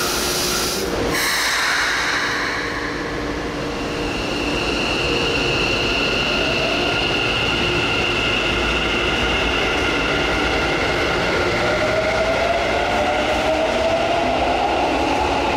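Keikyu 1000-series electric train pulling out of an underground station: a brief burst of noise about a second in, then a steady high whine and a motor whine that rises steadily in pitch as the train gathers speed, over the rumble of the wheels.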